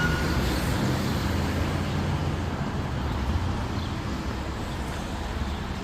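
Large fire-apparatus engine running, a steady low rumble that slowly fades.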